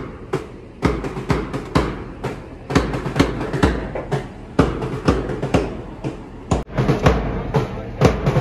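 A large drum beaten in quick, uneven strokes, about two or three a second.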